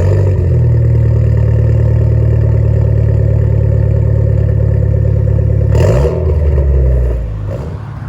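Mitsubishi Lancer Evo X turbocharged four-cylinder, fitted with a new muffler-delete exhaust, just started and running loud and steady. About six seconds in the engine note wavers, then it settles lower and quieter.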